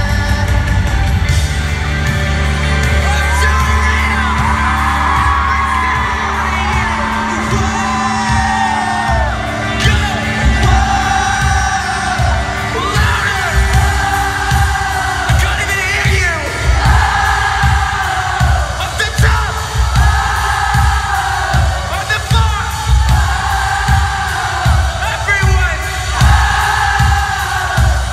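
A pop-punk band playing live with a sung lead vocal, recorded in an arena from high in the stands. Sustained bass and vocal lines open the passage, then the drums come in with a steady beat about ten seconds in.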